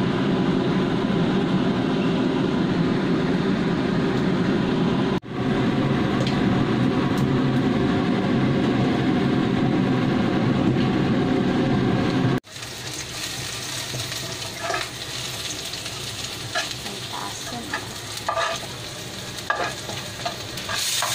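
For the first twelve seconds, a loud steady rushing noise, broken by a cut about five seconds in. After about twelve seconds comes a quieter stretch: a wooden spatula stirring and scraping food frying in a wok, with a light sizzle and repeated short scrapes.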